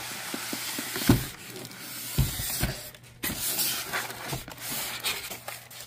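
Rustling of packaging while an item is handled and unboxed, broken by a few sharp knocks, the loudest about a second in and two more a little after two seconds.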